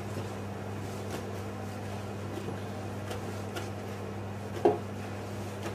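Faint, scattered taps of small knives cutting through mushrooms onto plastic chopping boards, over a steady low hum. About three-quarters of the way through comes one louder short knock.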